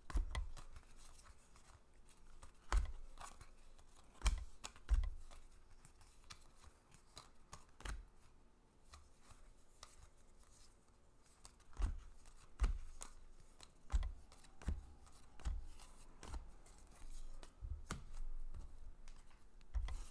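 Baseball cards being handled and sorted on a table: irregular sharp clicks and taps, each with a low thump, about a dozen spread through, as cards are flipped through and set down.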